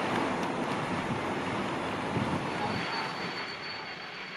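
Steady rushing engine and wind noise from the bike race's live sound, with no clear beat or pitch. A faint, thin, high steady whine joins about halfway through.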